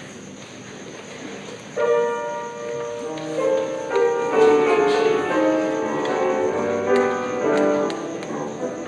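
Low room noise, then about two seconds in a piano starts playing, steady notes and chords carrying on from there.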